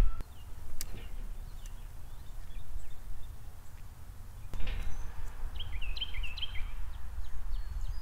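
Wind buffeting an outdoor feeder camera's microphone as a steady low rumble, with faint chirps of small songbirds in the background, a quick run of them about six seconds in. A short rustle comes about halfway through.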